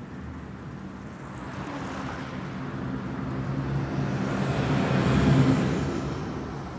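A road vehicle passing by: engine hum and tyre noise swell gradually to a peak about five seconds in, then fade away.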